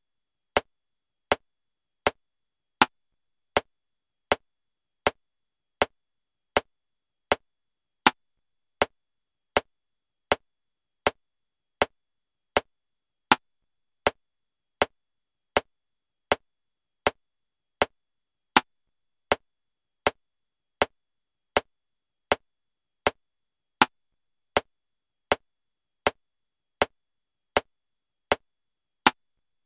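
Metronome clicking at 80 beats per minute in 7/4 time: a short click every three-quarters of a second, with a louder accented click on the first beat of every seven.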